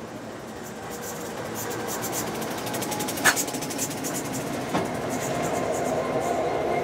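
Diesel freight train locomotives passing close by, their engines and steel wheels on the rail getting steadily louder. A sharp metallic clack comes about three seconds in, a lighter one follows a second and a half later, and a steady ringing note comes in over the last couple of seconds.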